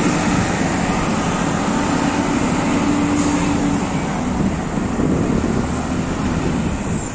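City street traffic: steady road noise from passing cars, with a vehicle engine humming through the first half and the noise easing slightly near the end.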